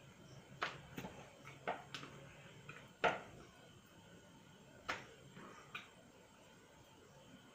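A handful of sharp, irregular clicks and taps, about eight in all, the loudest about three seconds in, from a young mongoose moving about on cloth inside a box.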